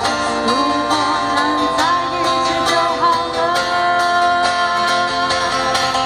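Live pop song: an acoustic guitar is strummed and picked while a singer sings a melody into a microphone through a PA. A long held sung note begins a little past halfway.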